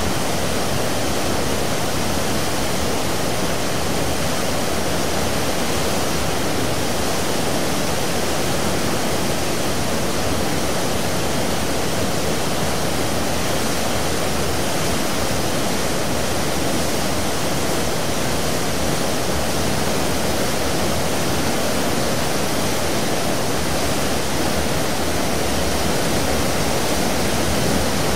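Seawash churning at the stern of a 17,400-ton car ferry: a steady, unbroken rush of wake water, full from deep to high with no pauses or surges.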